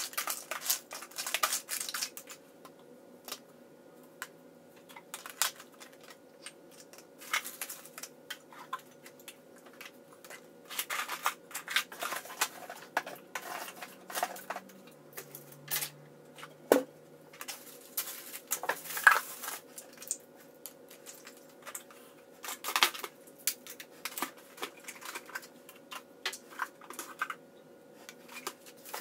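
Plastic toiletry bottles and containers being picked up and set down in plastic bins and a basket: irregular clicks, knocks and short rustles.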